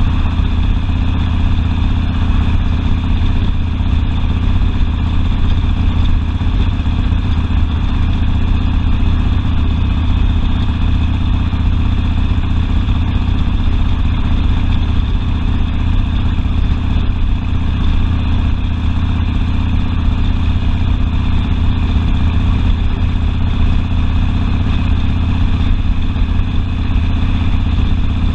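Harley-Davidson Sportster V-twin engine running steadily, with a deep, even exhaust note and no marked revving.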